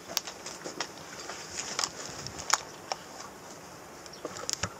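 Scattered light clicks and knocks from an airsoft player's footsteps and gear shifting as they move. The sharpest knock is about halfway through, and a quick cluster of clicks comes near the end.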